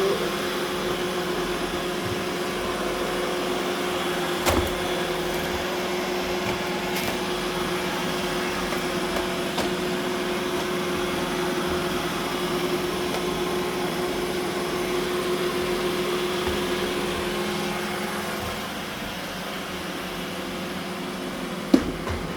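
Roomba robot vacuum running with a steady whir and hum. There is a sharp knock about four seconds in and another near the end.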